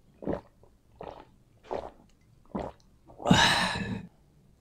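Water gulped from a glass, four swallows about 0.7 s apart, followed near the end by a louder 'ahh' breath out lasting under a second.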